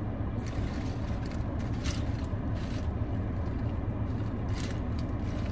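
Car engine idling, heard from inside the cabin as a steady low rumble, with a few faint handling noises from a plastic cup and lid.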